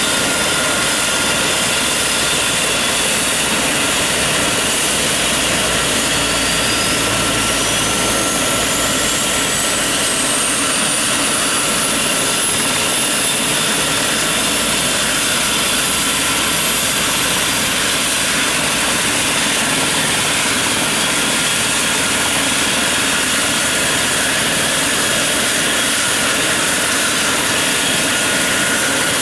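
Eurocopter EC135 helicopter's turbine engines running, a steady loud noise with a high whine that rises in pitch from several seconds in and then levels off.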